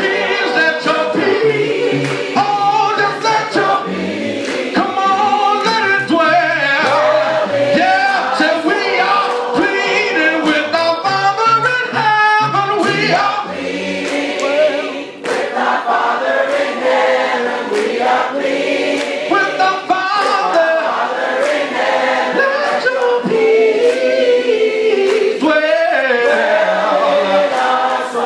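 Gospel praise song sung by a male lead singer on a microphone with the congregation singing along as a choir.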